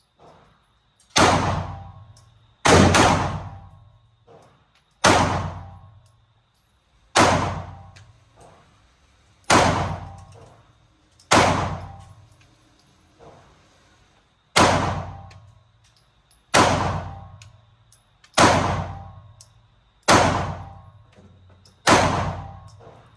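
Eleven handgun shots fired slowly, about one every two seconds, each a sharp crack with a long echoing tail in an indoor range; really loud. A faint steady high whine runs underneath.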